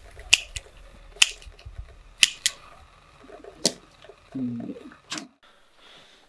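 A cigarette lighter clicked again and again, about six sharp separate clicks spread over five seconds, as a cigarette is lit. A brief low hum of a man's voice comes a little after the fourth click.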